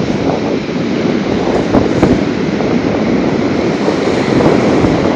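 Rough sea surf breaking and washing continuously in a storm, mixed with wind buffeting the microphone.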